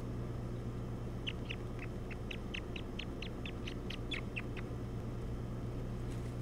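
Osprey calling: a run of about fifteen short, high chirps, four or five a second, starting about a second in and stopping after some three seconds, over a steady low hum.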